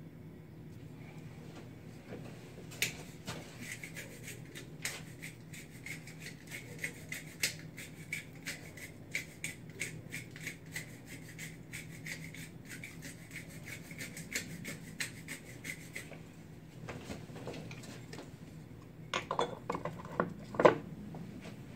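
Spice grinder twisted over a pot, making a long run of rapid grinding clicks for about thirteen seconds. Near the end come a few louder knocks and clatters of kitchenware being handled.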